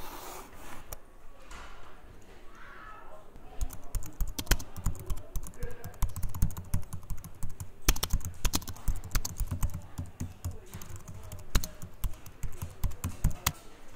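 Fast typing on a computer keyboard: rapid clacking keystrokes that start a few seconds in and run on in quick bursts.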